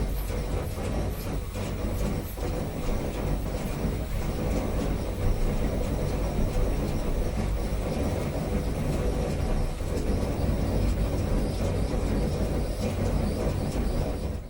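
A steady, dense rumbling noise, heaviest in the low end, with faint irregular ticks over it; it cuts off abruptly at the end.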